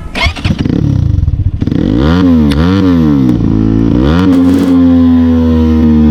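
CX250R motorcycle with its dB killer removed, revved in quick throttle blips about two seconds in, with a few sharp cracks among them as the rider tries to make it misfire and pop from the exhaust. It then settles into a steady note.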